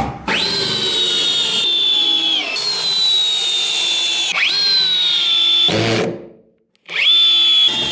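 Electric drill driving long wood screws into workbench timber. The motor whines in several runs, each rising fast in pitch as the trigger is squeezed and then sagging as the screw bites and seats. There is a short pause about six seconds in before the next screw.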